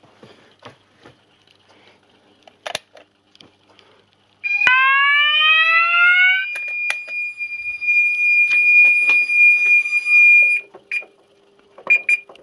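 Fire alarm sounders set off from a manual call point. After a few faint clicks they start about four and a half seconds in with a rising sweep, hold a steady high-pitched tone for about six seconds, and cut off, followed by a few short beeps.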